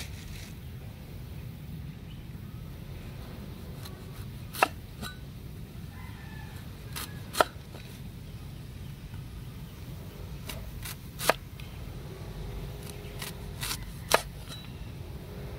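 Cleaver slicing through a sweet potato and striking a wooden chopping block: four sharp knocks a few seconds apart, with lighter taps between them, over a steady low rumble.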